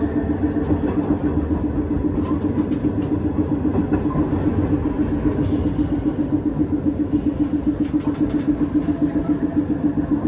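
New Orleans St. Charles streetcar running along its line, heard from inside the car: a steady motor hum with a fast, even pulsing over a low rumble and rattle. A short hiss comes about five seconds in.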